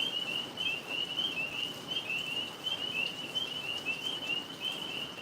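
A chorus of tree frogs calling: an unbroken run of short, high chirps, several a second, overlapping one another.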